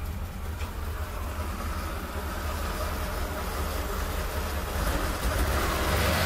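Tatra 613's air-cooled V8 engine running at idle: a steady low rumble, a little louder near the end.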